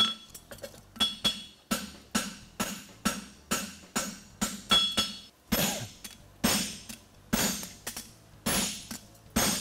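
Steady hammer blows on a red-hot steel horseshoe lying on an anvil, about two to three a second, some struck through a flatter to flatten the forge-welded toe. Several early blows give a clear, high anvil ring.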